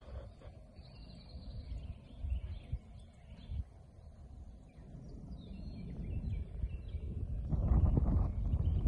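Outdoor ambience of wild birds chirping over wind rumbling on the microphone. A louder, rough noise builds in the last second or so.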